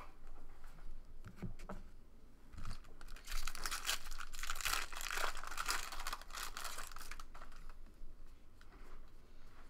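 Foil wrapper of a baseball card pack being torn open and crinkled, loudest from about three to seven seconds in. Softer rustle and clicks of cards being thumbed through come before and after.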